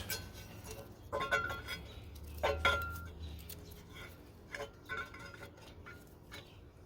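Metal parts clanking and clinking: a handful of sharp knocks, some with a brief metallic ring. The two loudest come about one and two and a half seconds in, followed by lighter clinks.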